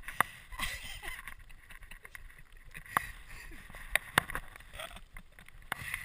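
A few faint, scattered knocks and clicks over low rustling noise, picked up by a GoPro action camera's microphone.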